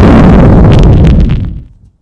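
Very loud explosion sound effect: a deep rumbling blast with crackle that fades away about a second and a half in.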